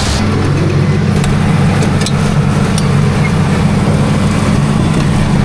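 Farm tractor's diesel engine running steadily at a constant speed, with a few faint clicks in the first few seconds.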